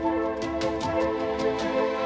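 Background music: sustained melodic notes over a steady, even beat.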